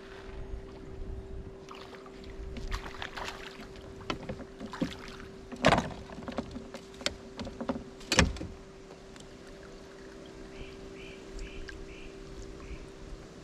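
Knocks and clatter on a small fishing boat, two of them sharp and loud, over a steady electric hum. Near the end there are a few faint short chirps.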